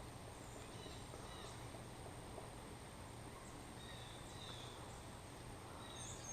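Quiet outdoor pond-side ambience: faint, scattered short bird chirps over a steady low hum.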